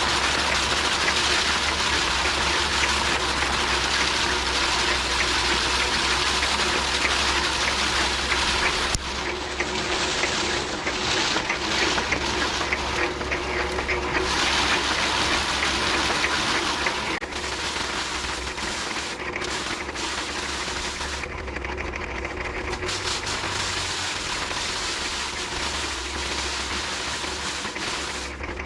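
Foot-pedal paddy thresher running: its spinning wire-toothed drum whirs and rattles steadily as it beats the rice stalks. The sound drops a little about a third of the way in and eases again past the middle.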